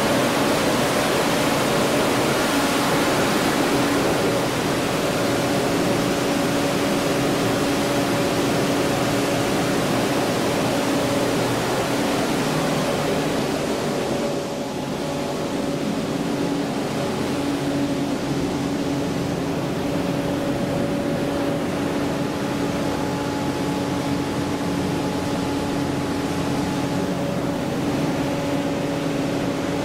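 Steady machinery noise: a constant hum of two held tones under a loud even hiss. The hiss eases and stays a little softer about halfway through.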